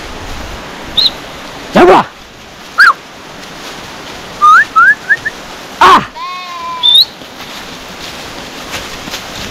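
Herding whistles and calls of a shepherd driving sheep and goats. There are two loud, sharp calls, about two and six seconds in, and between them a quick run of four short rising whistles.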